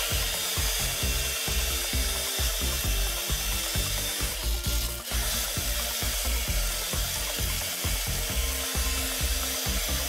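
Small DC motor of a homemade water-bottle vacuum cleaner running, with a steady hiss of rushing air as its hose sucks up small screws.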